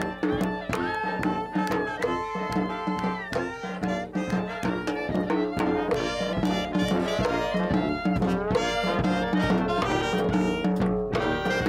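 Brass street band playing: sousaphone, saxophone and trombone over steady bass drum and snare beats.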